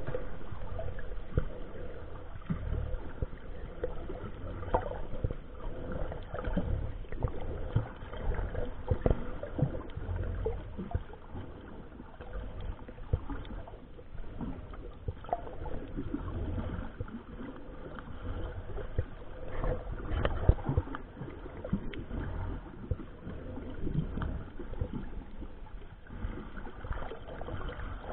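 Muffled underwater sound picked up through a camera's waterproof housing: a steady low rumble of moving water with many scattered clicks and crackles, and a faint steady hum underneath.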